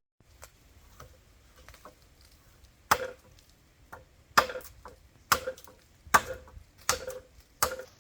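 Six sharp chopping blows into wood, the first two about a second and a half apart and the rest quicker, under a second apart, each with a short hollow ring.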